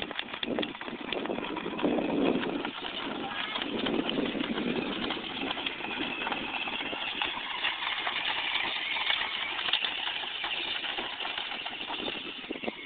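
Child's small ride-on quad driving along a dirt track: its motor and wheels run continuously, with many small knocks and rattles as it rolls over the bumpy ground.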